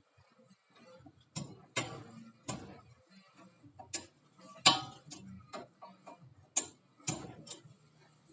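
Irregular metallic clicks and knocks of old brake pads being worked out of a Volkswagen Kombi's disc brake caliper, with one louder knock a little under five seconds in.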